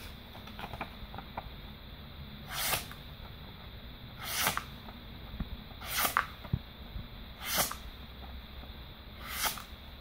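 Sanrenmu LAND 910 Plus folding knife blade slicing through a sheet of paper: five short hissing cuts, about one and a half to two seconds apart.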